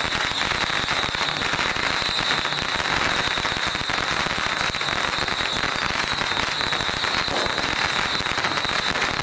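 Strings of firecrackers going off in a dense, continuous crackle of rapid bangs that does not let up.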